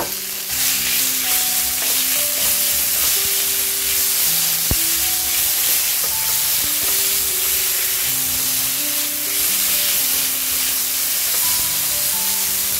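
Bosou (fermented rice with bambangan fruit) frying in hot oil in a pan, sizzling steadily as a spatula turns it in with fried anchovies. The sizzle grows louder about half a second in, and there is one sharp tap near the middle. Soft background music with a simple melody plays underneath.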